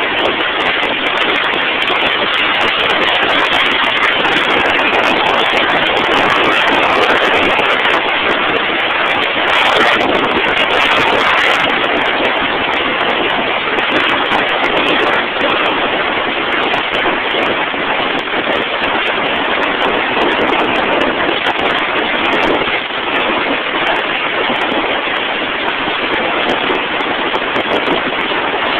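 Drilling rig machinery running, a loud, steady, unbroken noise with no distinct knocks or changes.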